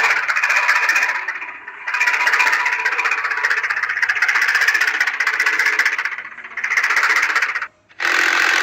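Small motor of a battery-powered toy tractor running with a fast, dense rattling clatter from its gears. It eases off briefly twice and stops for a moment near the end before starting again.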